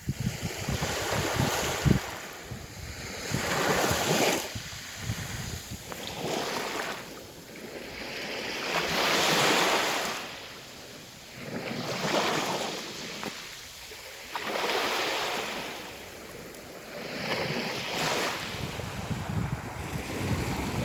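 Aegean Sea waves surging in and breaking, in swells a few seconds apart, the biggest about nine seconds in. Wind rumbles on the microphone in the first couple of seconds.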